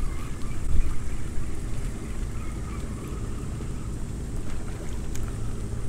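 Steady wind buffeting the microphone, a dense low rumble, with a few faint clicks near the end.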